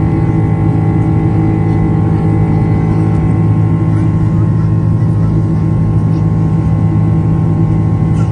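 Airliner's turbofan engines heard inside the passenger cabin during the climb-out: a steady, loud drone with deep hums and several held tones.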